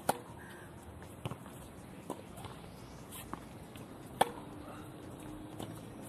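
Tennis rally on a hard court: a ball struck by rackets and bouncing, one sharp pop every second or so. The two loudest are the near player's strokes, one at the start and one about four seconds in.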